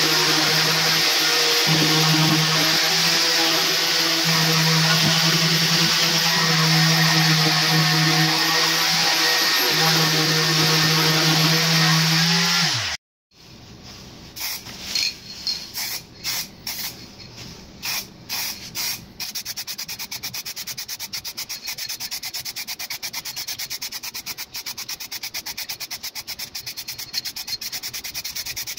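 Handheld electric sander running steadily on the cabinet's side panel, with a constant motor hum; it cuts off about 13 seconds in. Then an aerosol spray-paint can rattles as it is shaken: a few irregular shakes first, then fast, even rattling.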